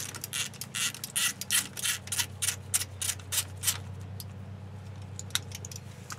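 Socket ratchet clicking in quick, irregular runs as an 11 mm socket backs out the brake hose banjo bolt on the caliper, thinning to a few scattered clicks after about four seconds.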